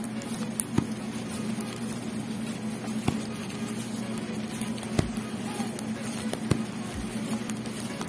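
Metal knitting needles clicking against each other, with the light rustle of yarn, as a row is purled; a sharp click every second or two over a steady low hum.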